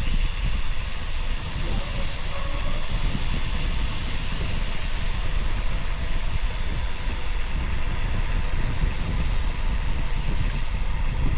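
Steady wind rush and road noise on the camera microphone of a road bike riding along, a low rumble under an even hiss.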